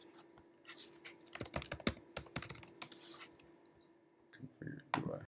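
Typing on a computer keyboard: a quick run of key clicks as a password is entered at an SSH login prompt, then a few separate key presses near the end.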